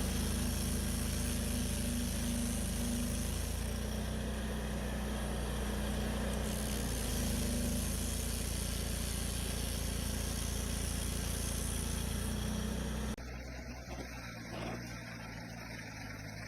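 A stump grinder's engine running steadily. About 13 seconds in, it cuts abruptly to a quieter, different machine sound.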